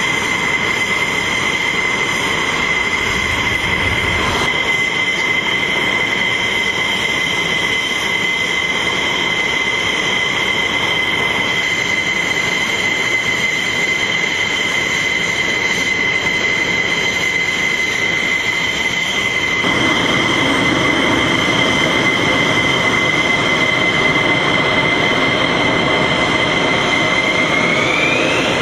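F-16 fighter jet taxiing, its turbofan engine giving a steady high-pitched whine over a rushing jet noise. It grows a little louder about two-thirds of the way in, and near the end the whine rises in pitch.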